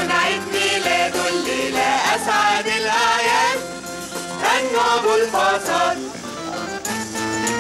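Pop band with keyboard, electric guitar and drums playing a children's song, with several voices singing together over it.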